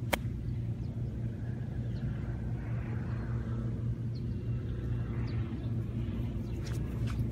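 A golf club striking the ball once, a sharp click just after the start, over a steady low rumble.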